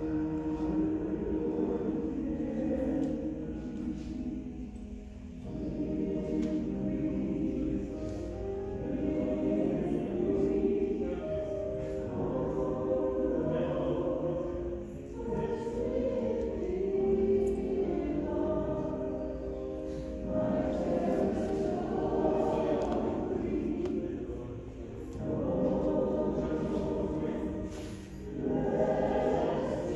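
A church congregation singing a hymn together, the lines separated by short pauses for breath.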